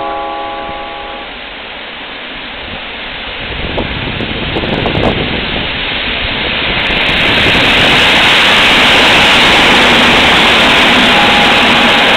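A station announcement chime rings with several clear tones in the first second. Then an EN57-type electric multiple unit approaches and passes close by on the adjacent track, its wheel and running noise building into a loud, steady rush from about a third of the way in.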